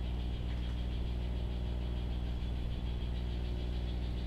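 A steady low hum with a faint high whine above it, unchanging throughout.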